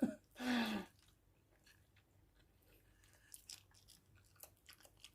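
Close-up mukbang eating sounds: faint, irregular wet chewing clicks and mouth smacks from chewing adobo chicken feet, after a short hum-like voice sound in the first second.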